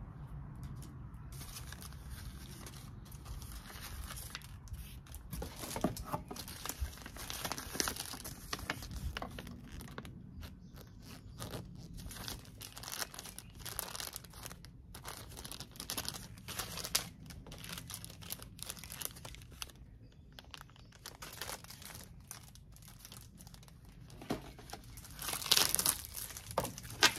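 Plastic packaging crinkling and rustling as items are handled and unpacked: a card, a small zip bag of mounting hardware and plastic-wrapped shelves. The loudest crinkling comes near the end, as the plastic-wrapped shelves are lifted out of the box.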